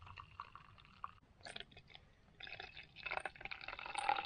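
Someone sipping hot coffee from a camp mug: quiet slurps and mouth sounds with small clicks, a little busier in the second half.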